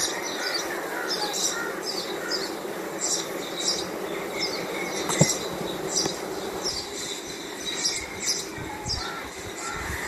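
Honey bees humming steadily from an open hive box full of bees on the frames. Over it, high chirps repeat two or three times a second, with one sharp click about five seconds in.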